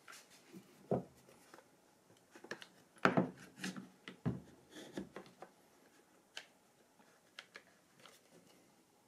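One-handed quick bar clamps being fitted and squeezed tight on a dowelling jig and boards. A scatter of short clicks and light knocks from the clamp and the wood being handled, loudest about one second and about three seconds in.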